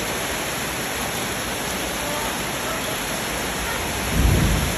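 Heavy rain falling onto shallow floodwater over paving, a steady hiss. About four seconds in, a louder, deeper splash as a child runs through the water.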